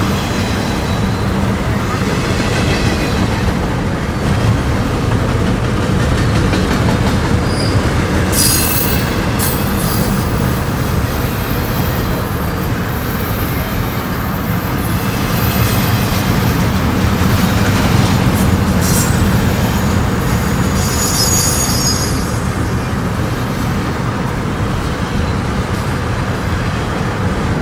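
Freight train rolling by, a steady heavy rumble of the cars on the rails, with short high-pitched wheel squeals twice.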